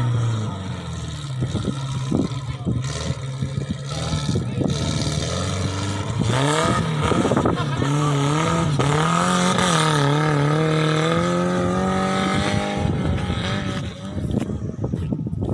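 Off-road vehicle engine revving hard under load, its pitch rising and falling repeatedly, loudest through the middle and later part and dipping briefly near the end.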